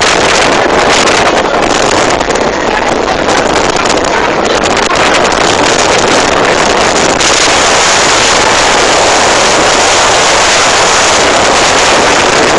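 Strong wind buffeting the microphone over the rushing, churning sea beside a ferry's hull in rough water: a steady loud noise that turns hissier about seven seconds in.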